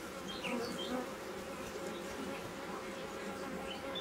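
A colony of honeybees buzzing steadily around an opened hive frame, with a few short high chirps over the hum.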